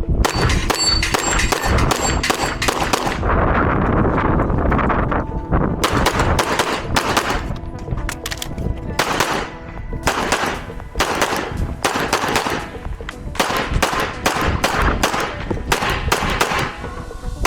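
Strings of rapid pistol shots fired during a USPSA practical-shooting stage, with a lull of a couple of seconds a few seconds in before the shooting resumes. Music plays underneath.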